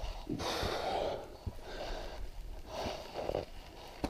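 A hiker breathing hard while climbing, about one heavy breath a second, with footsteps on the trail.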